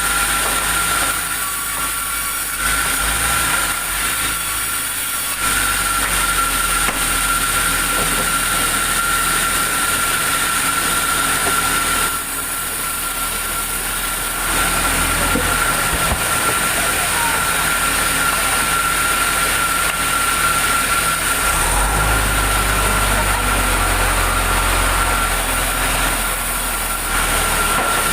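Sawmill machinery running steadily: a constant high-pitched whine over mechanical noise, with a deeper engine-like rumble rising about two-thirds of the way through.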